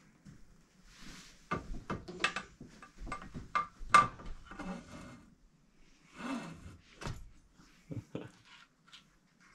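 Clicks and knocks of metal parts being handled as a suspension fork's steerer tube is fed up through a bicycle's head tube and headset bearing. The knocks come in an irregular string, with the loudest about four seconds in and a few scattered ones later.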